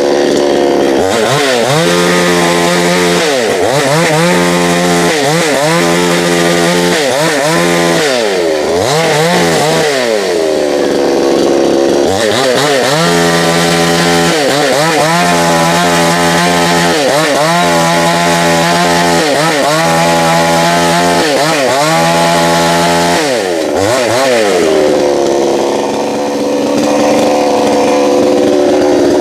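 Two-stroke chainsaw running at high revs, its engine pitch dropping and recovering about once a second over and over as the chain cuts into wood, then holding a steady high whine near the end.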